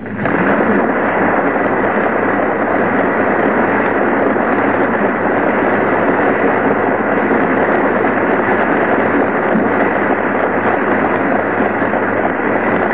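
Audience applauding steadily, heard dull and muffled on an old recording.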